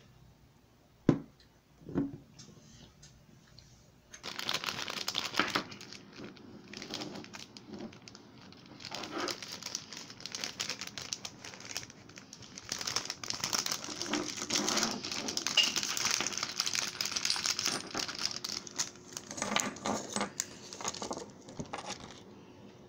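Clear plastic wrapping crinkling and rustling in long stretches as a small toy is handled and unwrapped by hand. Two sharp knocks come just before, about one and two seconds in.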